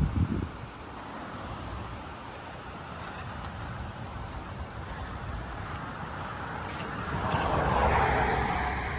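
Steady road-traffic hiss, with a vehicle passing by that swells to its loudest about eight seconds in and then fades.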